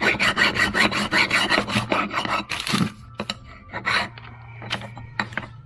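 Hand abrasive strokes rasping across the base of a Holley 94 carburetor to flatten its gasket surface. The strokes are quick and even, about five a second, at first, then slower and more widely spaced in the second half.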